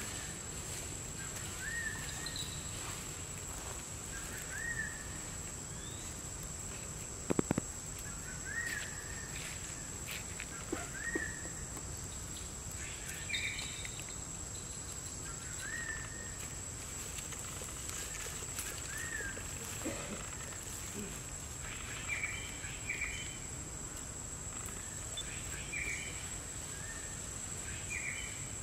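Outdoor woodland ambience: a bird's short chirp repeating every second or two over a steady high-pitched insect drone. A brief cluster of sharp clicks comes about seven seconds in.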